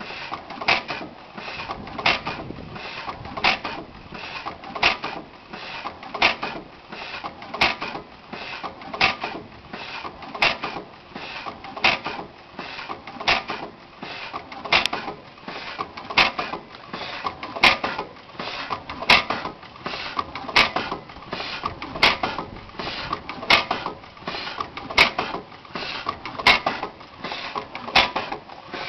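6 HP International Harvester Mogul hit-and-miss gas engine running, with a sharp firing stroke about every second and a half and lighter clicks between them as it coasts on its flywheel.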